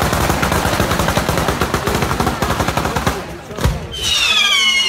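Daytime firework battery: a dense, rapid string of firecracker reports like machine-gun fire for about three seconds, then a single bang and several whistling fireworks with falling pitch near the end.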